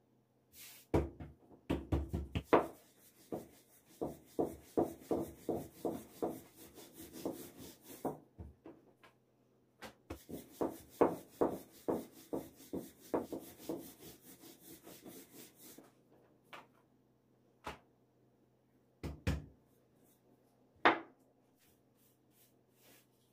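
Thin wooden rolling pin rubbing and rolling over baklava dough on a wooden board, in rhythmic strokes about twice a second, in two runs, followed by a few separate knocks of wood.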